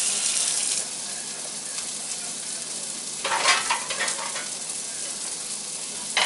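Running water from a kitchen tap stops within the first second, leaving the steady sizzle of hot fat frying in a skillet. There is a brief louder clatter about three and a half seconds in.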